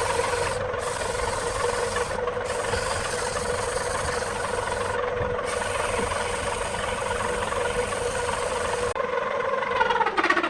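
Electric wood lathe motor running at a steady speed, then switched off near the end, its pitch falling as it spins down.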